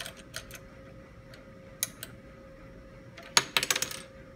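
Hard plastic and small metal parts of a vSet2 seed meter clicking and clattering as the meter housing and its removed cover and screws are handled on a tabletop. A few light clicks come first, then a quick run of louder clicks about three and a half seconds in.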